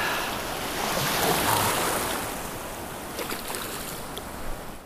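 Shallow ocean surf washing and rushing close to the microphone, swelling about a second in and easing off near the end.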